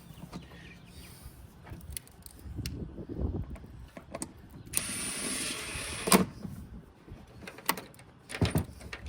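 Hand tools, screws and plastic trim handled and fitted during reassembly: scattered sharp clicks and knocks, with a rasping noise lasting about a second and a half near the middle.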